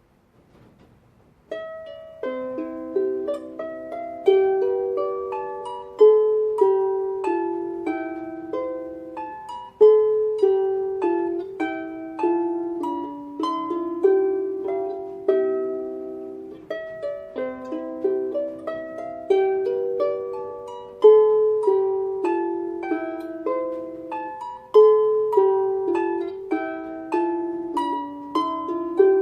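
Irish harp playing a slow melody over plucked chords, each note struck sharply and ringing as it fades; it begins about a second and a half in.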